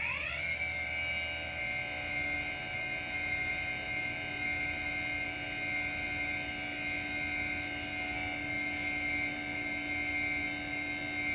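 A machine-tool spindle spinning up right at the start and then running at constant speed with a steady high whine over a lower hum.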